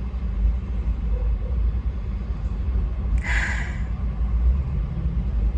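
Steady low rumble of a car cabin, with one short sniff about three seconds in as someone smells a dip.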